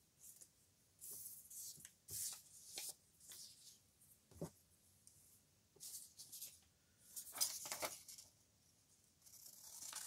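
Paper rustling and sliding as printed sheets are picked up and moved about on a table, in short scattered bursts, with one sharp tap about four and a half seconds in.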